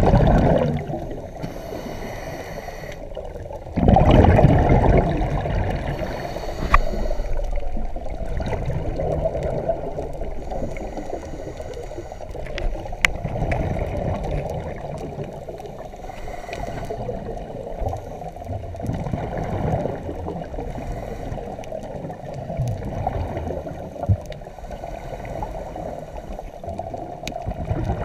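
Scuba diver's regulator breathing heard underwater: exhaled bubbles gurgle in surges, loudest at the start and about four seconds in, with smaller swells every few seconds over a steady water hiss.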